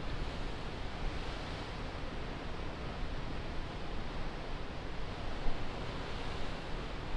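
Steady hiss of wind and sea surf, with a low, unsteady rumble of wind on the microphone.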